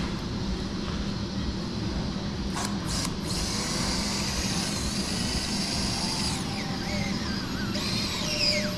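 Battery-powered surgical drill-driver working into bone. A couple of clicks, then a steady high whine from about three seconds in that dips in pitch briefly and winds down near the end.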